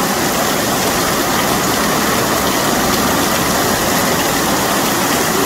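Heavy rain pouring and floodwater rushing down a street in a flash flood: a steady, loud rushing noise.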